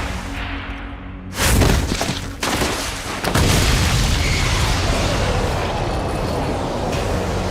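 Booming fight sound effects over background music: a heavy impact about a second and a half in, another about a second later, then a sustained rumble.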